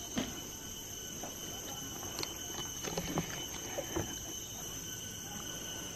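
Steady high-pitched drone of forest insects, with a few irregular soft knocks of footsteps on wooden stairs.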